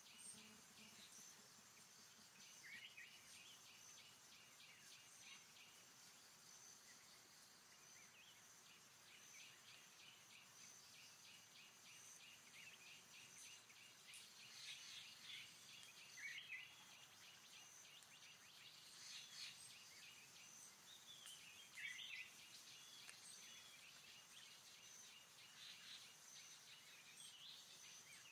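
Faint forest ambience: a steady high insect drone with rapid insect pulsing, and a few short, falling bird chirps scattered through it.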